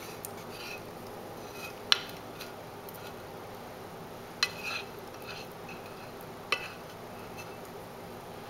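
Chopsticks tapping and scraping against a small metal frying pan as dark caramel sauce is scraped out into a pot: three sharp clinks about two seconds apart over a steady low hiss.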